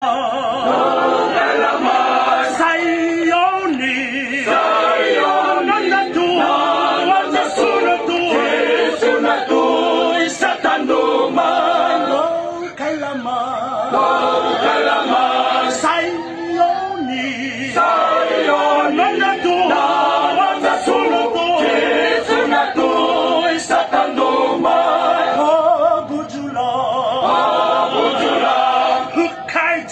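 Men's voice choir singing a hymn a cappella in Fijian, several voices in harmony, in long held phrases with short breaks between them.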